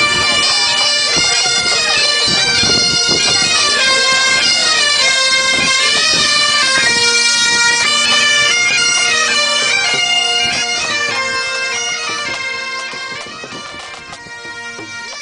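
Bagpipes playing a tune over a steady drone, growing quieter over the last few seconds.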